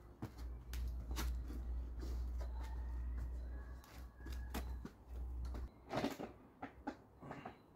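Scattered knocks and scrapes of a wooden plank being handled against a concrete block wall, over a low rumble that stops near the end; the loudest knock comes about six seconds in.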